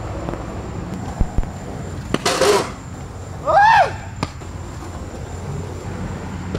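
Skateboard clacks and knocks on concrete, with a short scraping rush about two seconds in. Just after it comes a short shout from a person, the loudest sound here, rising then falling in pitch.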